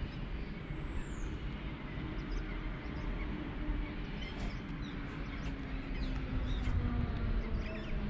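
Open-air ambience: a low, steady rumble with a faint hum that slowly falls in pitch, and scattered faint bird chirps from about halfway through.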